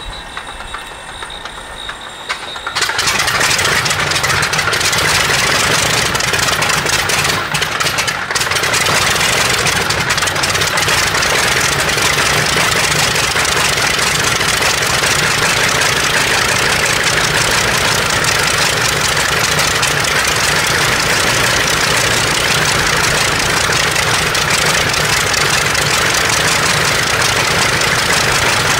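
Original Nakajima Sakae 21 fourteen-cylinder radial engine of a Zero fighter being cranked, catching about three seconds in and then running steadily at low revs. A brief dip in its sound comes a few seconds after it catches.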